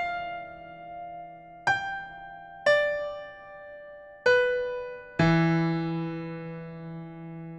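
Background piano music: slow, separate notes struck about a second apart, ending with a fuller chord that is left ringing.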